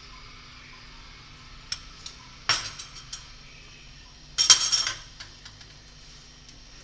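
A steel spoon clinking and scraping against a small glass bowl: a single light clink, then two quick clusters of clinks about two seconds apart, the second one the loudest.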